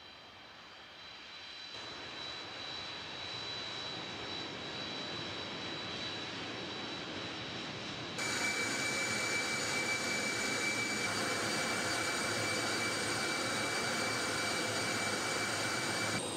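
Jet engines of an Antonov An-124 Ruslan transport running as it taxis: a steady high whine over engine noise that grows louder over the first few seconds. About halfway through the sound changes abruptly to a louder, steady jet-engine noise with a different whine, which stops suddenly near the end.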